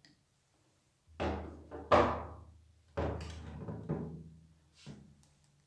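The plastic-and-metal pump head parts of a Nilfisk E 140.3 pressure washer are being handled and set down on a table. There are about five knocks and thunks, roughly a second apart, and the loudest comes about two seconds in.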